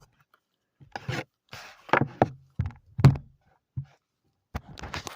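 Handling noise: irregular rubbing and scraping with a few knocks, as objects are slid and set down, with one separate thump a little before the end.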